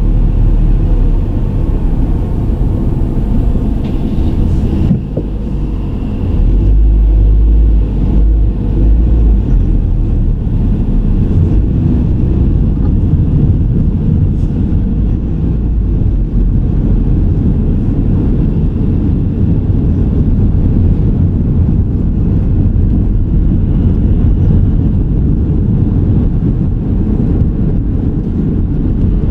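A car driving: a steady low rumble of road and engine noise, swelling louder for a few seconds about seven seconds in.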